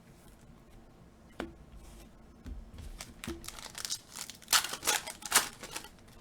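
A pack of 2021 Panini Illusions football cards being handled and opened: a couple of light clicks, then loud crinkling and tearing of the wrapper near the end.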